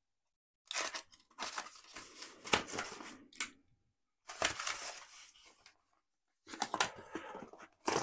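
Packing tape on a corrugated cardboard wrap being cut with a utility knife and torn, then the cardboard being pulled open, in several rustling bursts with short pauses between.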